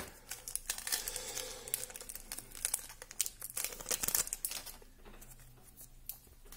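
Wrapper of a 1993-94 Topps Premier hockey card pack being torn open and crinkled by hand. A dense run of crackles over the first four or so seconds goes quieter, and a few more come near the end.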